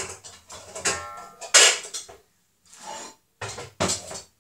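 Metal pots and pans clattering and knocking against each other as they are pulled out of a kitchen cupboard: about half a dozen sharp knocks, one with a short metallic ring.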